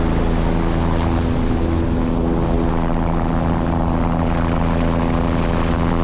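Helicopter running steadily, with its engine and rotor making an even, unchanging drone.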